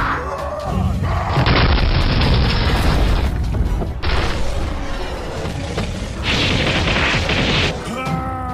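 Cartoon fight sound effects: deep booms and crashing impacts over background music.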